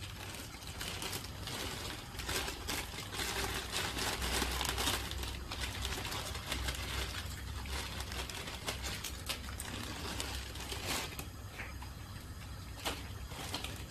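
Plastic bag of dry farfalle pasta crinkling as it is handled and tipped into a pot of boiling water, with many small crackles and clicks over a steady hiss.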